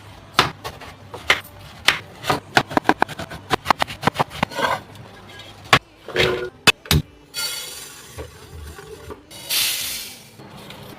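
Knife chopping on a wooden cutting board, in runs of quick strokes, followed by two short hissing stretches.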